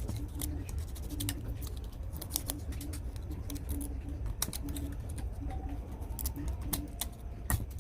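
Irregular small clicks and taps of handwork over a steady low rumble, with one sharper click near the end.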